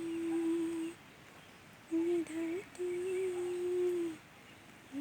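A person humming a slow tune without words, in long held notes with short pauses between phrases and a brief upward slide in the middle.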